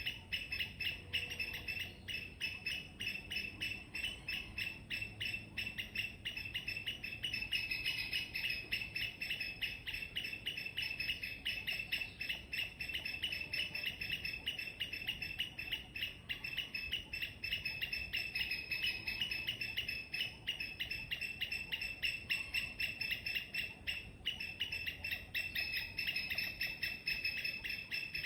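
Squirrel chirping loudly: an unbroken, rapid run of short, sharp chirps, several a second, keeping an even pace throughout.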